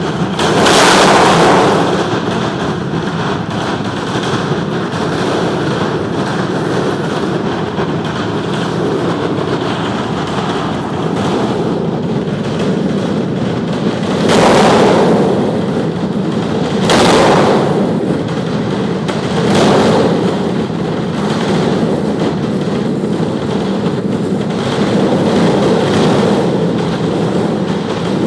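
Aircraft engine running, heard from behind it: a loud, steady roar that swells into stronger rushes several times.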